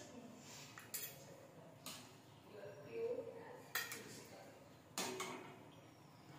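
Steel ladle clinking against a steel wok and bowls as curry is served out: four sharp metal clinks spread over about four seconds.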